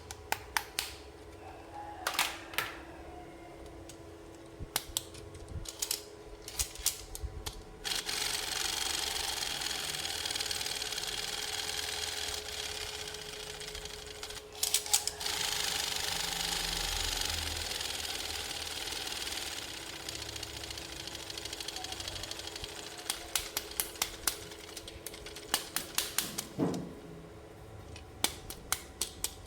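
Toy packaging and plastic toy parts being handled: runs of quick sharp clicks and taps, and a steady crinkling rustle in the middle stretch.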